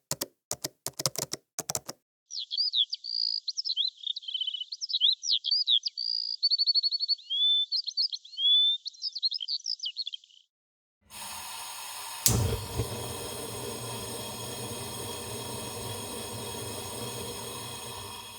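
Key clicks for about the first two seconds, then a songbird singing a rapid run of varied chirps, whistled glides and short trills for about eight seconds. After a brief silence a steady noisy hum takes over, with one sharp hit about a second after it begins.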